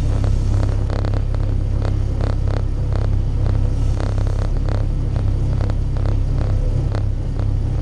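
Small diesel switcher locomotive's engine running steadily under way, a low rumble heard close to its exhaust stack, with irregular clicks and knocks from the moving locomotive.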